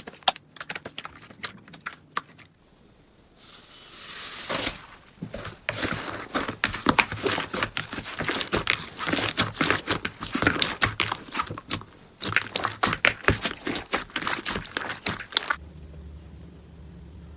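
Slime being squeezed and pressed by hand, giving crackling, crinkling clicks: scattered at first, then after a brief lull and a soft rush, a long dense run of crackles that stops shortly before the end, leaving a low hum.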